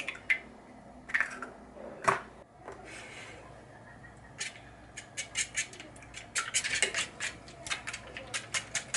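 An egg cracked and opened over a stainless steel tray, with a few sharp taps. From about halfway, a fork beats eggs in the metal tray, clicking quickly and repeatedly against it.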